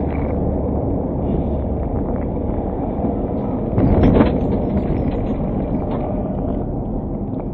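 Steady road and engine noise of a car driving on a highway, heard from inside the car. A louder, noisy burst lasting about half a second comes a little under four seconds in.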